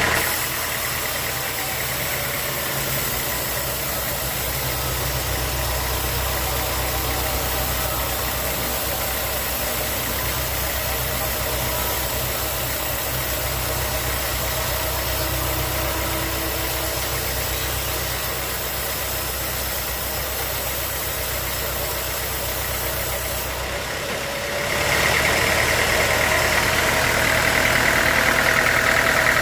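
Sawmill engine running steadily. About 25 seconds in, the sound jumps louder and a high-pitched whine joins it.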